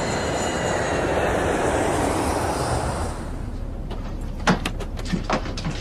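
Jet airliner noise: a steady roar with a high engine whine for about three seconds, then dropping to a lower cabin hum with a few sharp clicks near the end.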